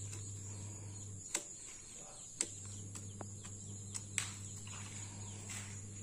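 Several sharp clicks and knocks of small plastic toy cars set down and pushed on a wooden plank, over a steady high insect buzz and a low steady hum that breaks off for about a second.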